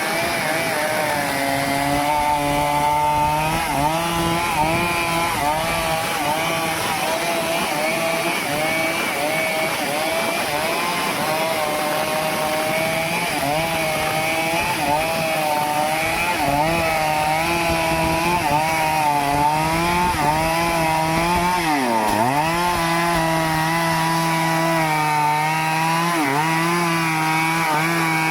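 Stihl chainsaw cutting into a teak tree, running under load with its pitch wavering as the chain bites. About three-quarters of the way through, its pitch drops sharply and climbs straight back.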